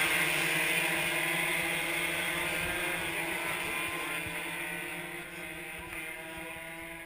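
Engines of a pack of 125 cc road-racing motorcycles running together, fading steadily as the bikes ride away.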